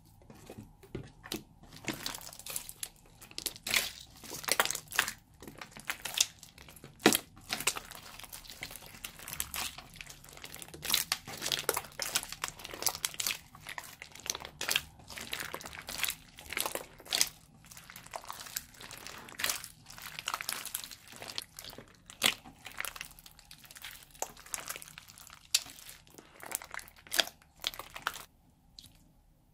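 Hands kneading and squeezing sticky slime with freshly added white glue: a dense, irregular run of wet clicks, pops and squelches as the slime is pressed and pulled apart.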